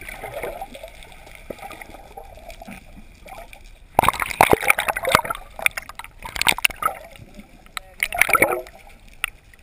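Water sounds heard underwater: a low muffled wash broken by three loud bursts of bubbling and splashing, the first about four seconds in and the others near six and eight seconds.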